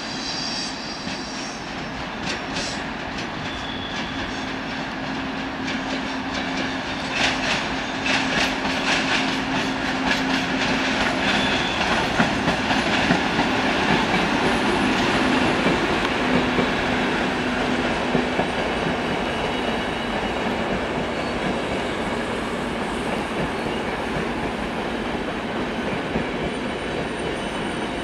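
ÖBB Taurus electric locomotive and its coaches rolling slowly into the station. The wheels click over rail joints and points, with a steady hum from the locomotive and a few brief high wheel squeals. The sound builds to its loudest about halfway through, then eases.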